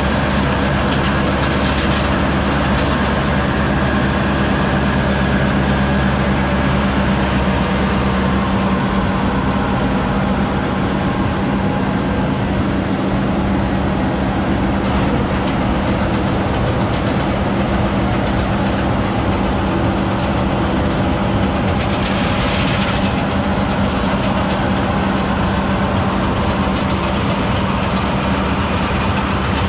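Gregoire G106 grape harvester running steadily: a constant engine note with mechanical rattling. Its deepest rumble eases about eight seconds in.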